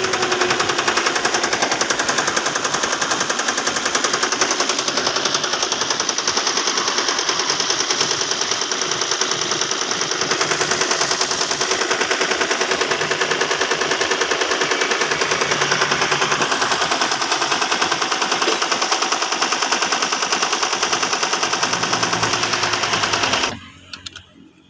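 2005 Toyota Prius 1.5-litre four-cylinder petrol engine running with a fast, even clatter, then stopping abruptly about a second before the end. The car has stored misfire codes for random and cylinders 1 and 2 misfires (P0300, P0301, P0302).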